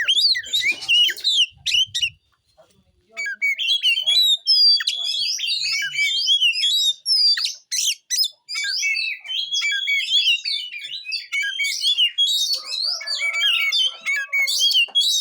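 Oriental magpie-robin (kacer) singing a fast, varied song of chirps and whistled glides, the rapid 'rolltembak' fighting song that keepers train for, with a short pause about two seconds in.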